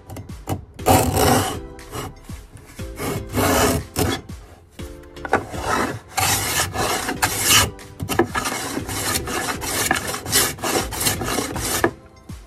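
Small Japanese hand plane (kanna) shaving the edge of a wooden box in a series of rasping strokes, each about a second long with short pauses between. Background music plays softly underneath.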